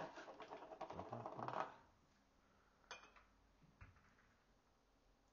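Flour being tipped and knocked out of a container into a glass mixing bowl: a quick run of light ticking and rustling for about a second and a half, then two single clicks.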